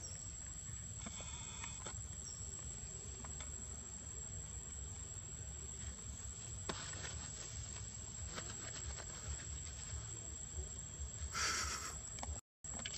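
Outdoor ambience: a steady high-pitched insect drone over a low rumble, with faint scattered rustles and clicks from the leaf litter. A short, brighter rasping burst comes about a second and a half before the end, and the sound cuts out for a moment just after it.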